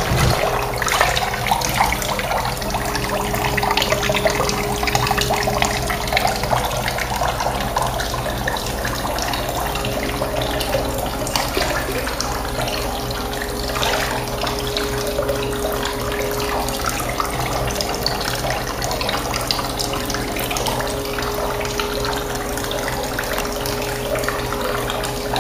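Bathtub tap running, a steady stream of water splashing into a full bath. A steady tone sounds underneath the whole time.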